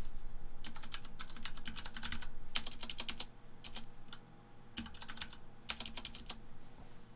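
Typing on a computer keyboard: several short runs of quick keystrokes with brief pauses between them.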